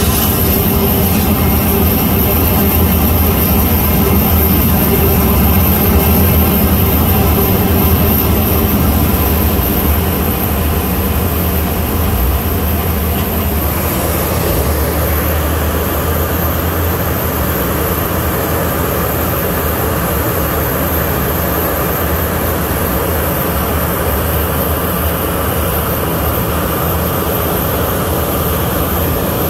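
Jet airliner engines running on the apron: a loud, steady noise with a constant high-pitched whine over a low hum. The sound changes character once, roughly halfway through.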